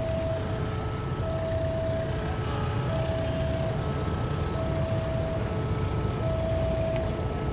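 Diesel locomotive hauling loaded ballast hopper wagons, a steady low rumble of engine and wheels. Over it, a two-tone electronic warning signal alternates high and low, each note lasting about three-quarters of a second.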